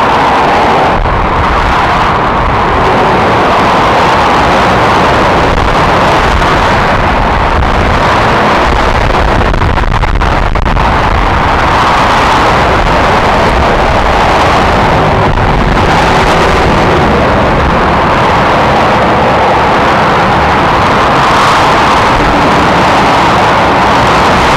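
Dense motorway traffic of cars and lorries passing: a continuous noise of tyres and engines that swells and eases every few seconds as vehicles go by.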